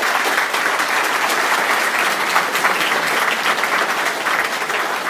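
Audience applauding, a dense steady burst of clapping that tails off near the end.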